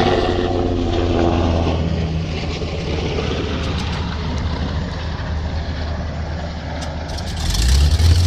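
Hawker Hurricane's Rolls-Royce Merlin V12 piston engine running after start-up, with a steady low engine note. It grows louder and rougher about seven and a half seconds in.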